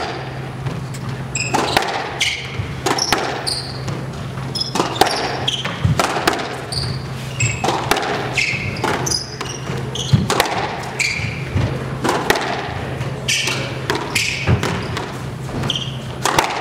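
Squash rally: the ball is hit by rackets and smacks off the court walls again and again at an irregular pace, about once a second. Many short high squeaks come from the players' court shoes on the wooden floor, over a steady low hum.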